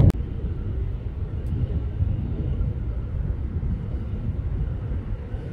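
Low rumble of a distant fighter jet's engine, slowly fading, with a brief click at the very start.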